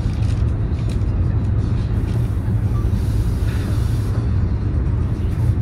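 Steady low rumble inside a high-speed train carriage while it runs, with a brief rise in hiss about two seconds in that fades again after about two seconds.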